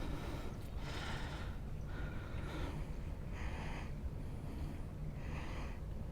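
A man breathing hard close to the microphone, one audible breath about every second, over a steady low hum.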